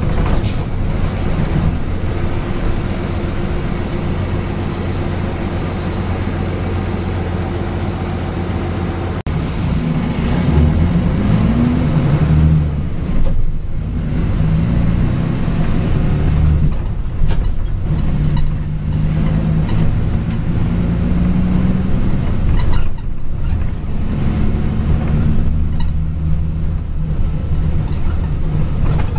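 Mitsubishi Fuso city bus's diesel engine heard from inside the passenger cabin. It hums steadily at first; about nine seconds in it picks up, and its pitch rises and falls several times as the bus moves off and changes gear.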